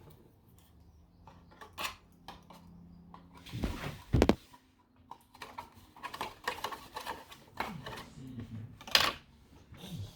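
Plastic bottle and bowl being handled while string is threaded through their holes: irregular light clicks, taps and scrapes, with louder knocks about four seconds in and again about nine seconds in.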